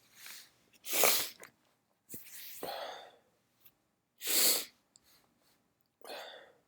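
A person sneezing several times in a row, with wet, forceful, induced sneezes. The two loudest come about a second in and about four and a half seconds in.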